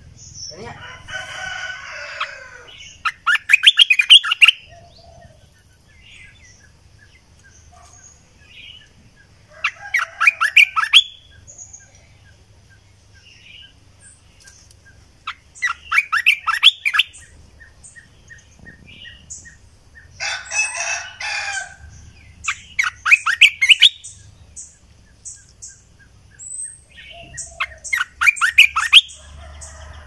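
Olive-winged bulbul calling: loud phrases of rapid notes, each about a second to a second and a half long, repeated six times at intervals of roughly five to seven seconds.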